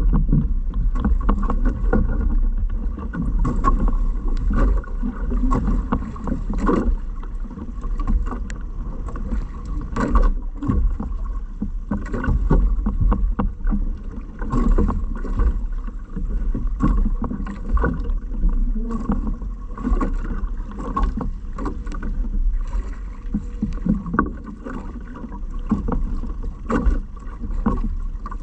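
Water sloshing and splashing around a small fishing boat, with irregular knocks and a steady low rumble of wind on the microphone.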